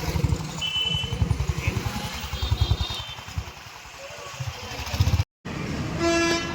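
Motorcycle engine running, a rapid low pulsing of its firing strokes, with a short vehicle horn toot about six seconds in.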